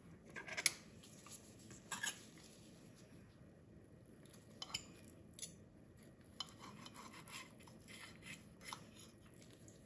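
Knife and fork on a plate, cutting through a rolled pancake: a few sharp clinks of metal on the plate, then a run of soft scraping in the second half as the knife saws through.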